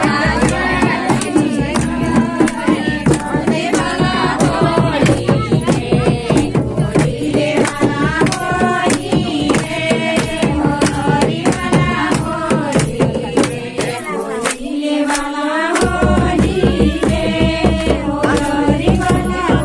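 A group of voices singing a Kumaoni folk song of the jhoda-chanchari kind, with a drum keeping a steady beat. The drum drops out for a moment about fourteen seconds in, then comes back.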